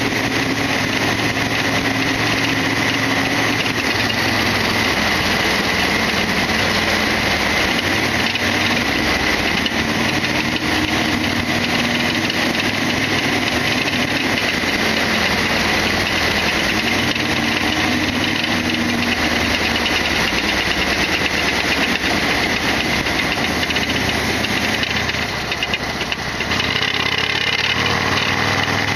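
Harley-Davidson XL1200R Sportster's 1200 cc air-cooled V-twin engine running under way on the ride, a steady loud engine note mixed with road and air rush. A few seconds before the end the sound dips briefly and the engine note changes pitch.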